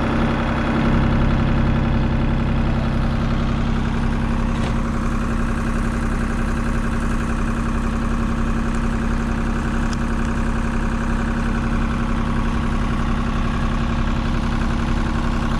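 Class 47 diesel locomotive's Sulzer twelve-cylinder engine idling steadily with the train standing.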